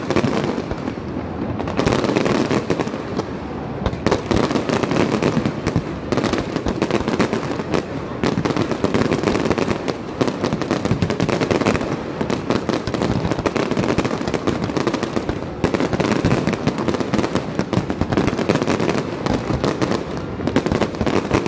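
Fireworks display with shells bursting in a dense, unbroken barrage of rapid bangs and pops.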